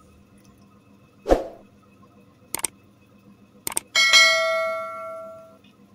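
Subscribe-button animation sound effect: a soft thump, two quick double clicks, then a notification-bell ding ringing out for about a second and a half.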